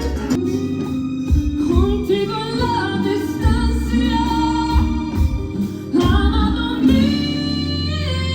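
Background music: a pop song with a female voice singing over a steady bass line.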